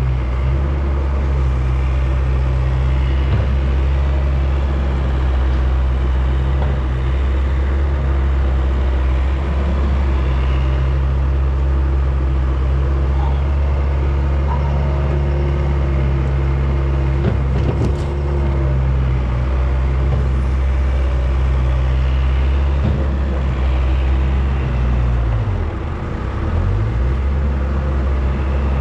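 John Deere skid steer's diesel engine running steadily at working speed, with one sharp knock partway through. Near the end the engine note drops in pitch and comes back up.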